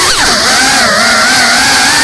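Whine of a GEPRC Cinelog35 cinewhoop FPV drone's brushless motors and ducted propellers. The pitch dips sharply just after the start as the throttle changes, climbs back, then holds with small wobbles and rises a little near the end.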